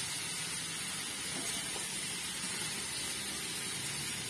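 Steady sizzling hiss of native chicken pieces frying in an open pan on a gas stove.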